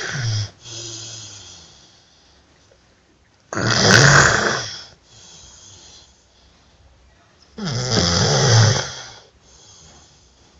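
Snoring in sleep: two loud snores about four seconds apart, each lasting over a second and followed by a softer breath out, with the tail of an earlier snore at the very start.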